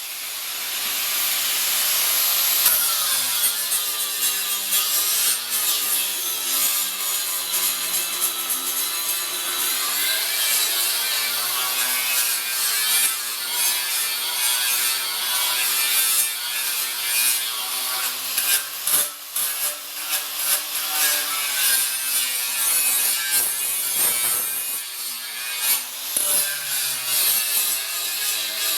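Electric grinder working steel welds on a fireplace door: a continuous high grinding hiss over the motor's tone, which wavers up and down in pitch as the load on the disc changes.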